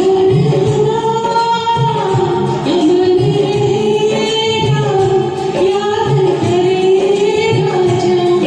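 A woman singing long held notes with a karaoke backing track of a Hindi film duet.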